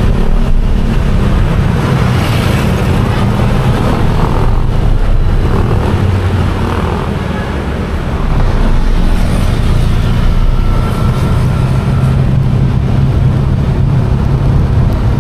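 Motorcycle engine running under way, with road and wind noise over it; the engine eases off a little past halfway, then picks up again.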